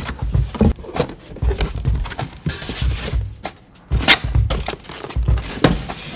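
Cardboard flaps of a large monitor box being pulled open and handled: scraping and rustling of cardboard with repeated low thumps.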